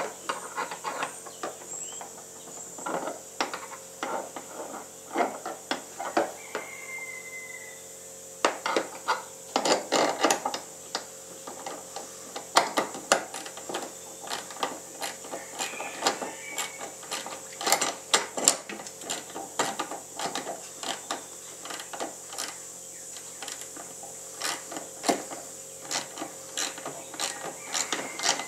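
Irregular clicks, taps and short scraping sounds of hands and tools working on a jet ski, over a steady faint hum.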